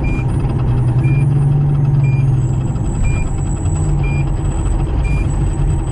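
Diesel engine of a Pierce Arrow XT fire engine running as the truck rolls along, with a steady low drone that eases off about halfway through. A short high electronic beep repeats about once a second over it.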